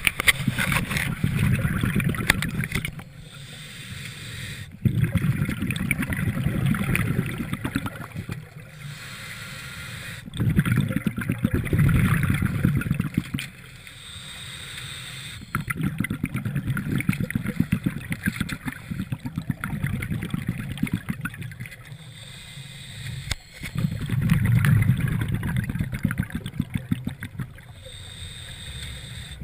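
Scuba diver breathing through a regulator underwater: a burst of exhaled bubbles lasting about three seconds, then a quieter hiss of inhalation, repeating about every five or six seconds.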